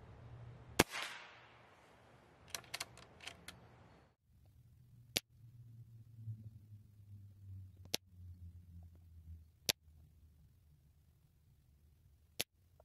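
Reximex Tormenta .22 air rifle, fired at low power with a bare barrel, gives one sharp crack about a second in, followed by a quick run of light clicks. Four more single sharp shots follow a couple of seconds apart, heard from by the target.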